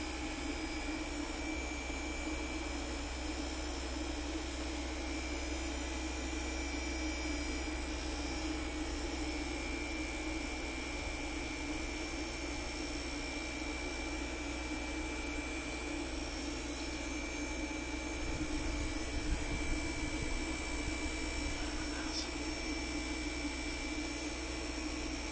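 Cruise N Comfort 12-volt air conditioner running with a steady whirring drone and a low hum while refrigerant is charged into it from a can. It gets a little louder for a few seconds about two-thirds of the way through.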